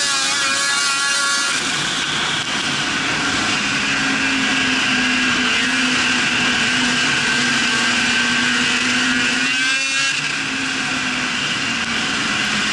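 Snowmobile engine running at a steady cruising speed under a rushing hiss. About ten seconds in the engine note dips briefly, then climbs back up.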